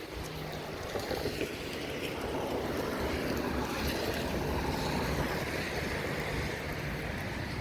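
Gusty wind, a steady rushing noise that swells about a second in and then holds.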